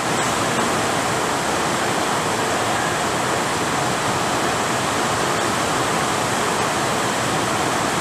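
Rain falling steadily in a dense, even hiss.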